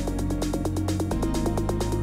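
Electronic background music with a fast, steady beat, changing bass notes and a slowly rising synth tone.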